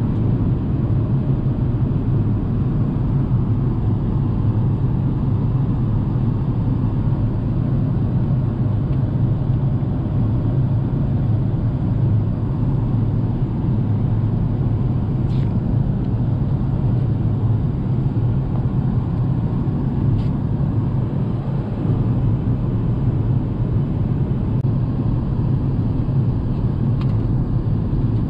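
Steady cabin noise of an Emirates Airbus A380-800 in flight: an even, deep rumble of engines and airflow, with a few faint clicks.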